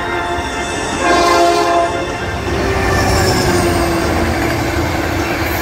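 Diesel locomotive passing with a low rumble, and its air horn sounding a chord from about a second in, the pitch sagging slightly as it goes by.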